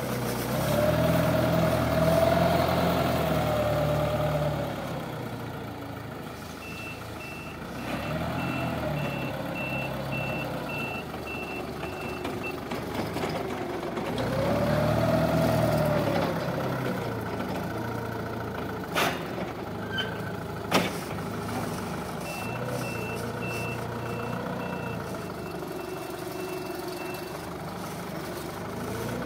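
Linde sit-down forklift's engine revving up and falling back several times as it manoeuvres, with its reversing alarm beeping about twice a second in two runs. Two sharp knocks about two seconds apart come a little past the middle.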